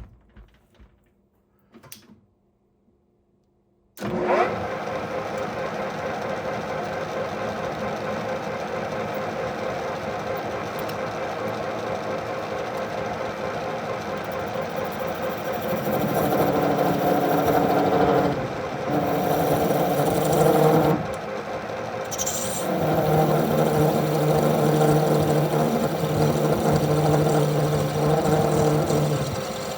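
A metal lathe starts up about four seconds in, spinning up with a brief rising whine, then runs steadily. It gets louder in stretches through the second half, with a steady hum.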